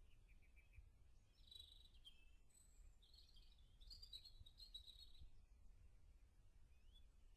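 Faint songbird song in short chirping phrases, strongest from about three to five seconds in, over a steady low rumble of outdoor background noise.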